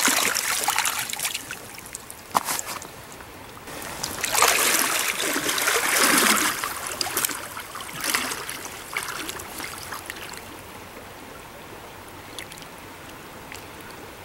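A trout stream running steadily. A couple of brief knocks come early, and water splashes and sloshes close by for a few seconds near the middle.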